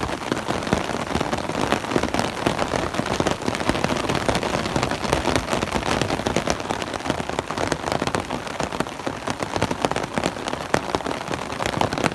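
Heavy rain falling on a clear umbrella overhead: a loud, steady, dense patter of countless drops striking the canopy close by.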